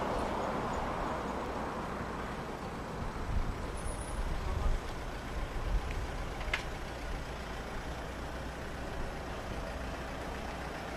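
Outdoor road traffic: a steady hiss with a low, uneven rumble that swells a few times, and one brief sharp sound about six and a half seconds in.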